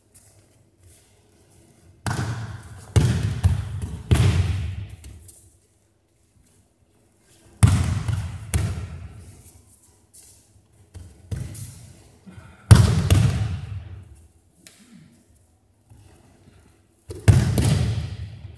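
Aikido breakfalls: bodies hitting and slapping the mats in about eight sudden thuds, coming in clusters, each trailing off in the echo of a large sports hall.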